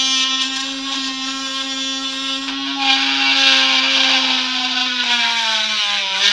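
Small 12-volt DC motor of a homemade mini drill press running with a steady whine as its bit drills through a plastic CD. About two and a half seconds in, a scratchy grinding joins as the bit cuts into the disc, and the motor slows slightly near the end.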